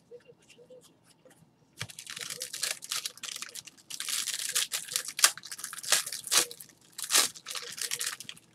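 Foil trading-card pack wrapper being torn open and crinkled in gloved hands: a few faint card-handling clicks, then from about two seconds in a long run of sharp tearing and crinkling noises.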